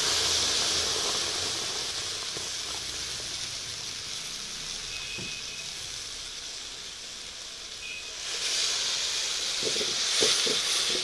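Tomato paste hitting hot oil in an aluminium pot and sizzling hard: a loud hiss that fades slowly, then swells again about eight seconds in as a steel ladle stirs it, with a few scraping strokes near the end.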